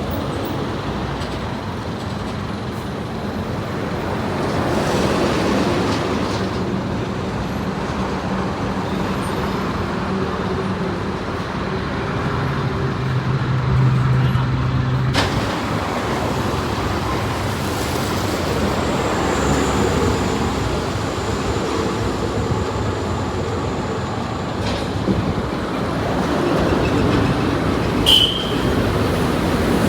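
Road traffic: vehicle engines and tyres running steadily, with a sharp click about halfway through and a short high beep near the end.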